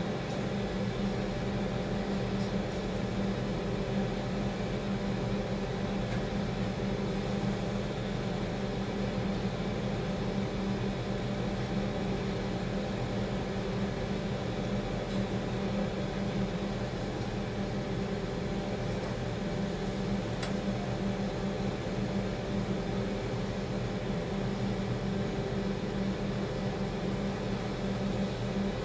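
Steady machine hum inside a crane cab: an even drone with a few constant tones that does not change.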